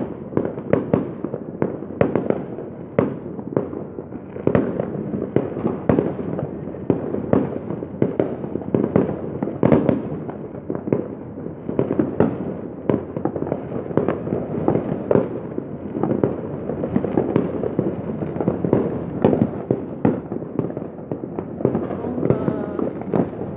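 Fireworks going off all around: a continuous barrage of sharp bangs and crackling pops, several a second, with no let-up.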